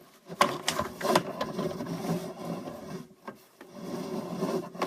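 A sewer camera's push cable and camera head scraping and rubbing as they are fed down the drain pipe. There are a few sharp knocks in the first second, then uneven scraping.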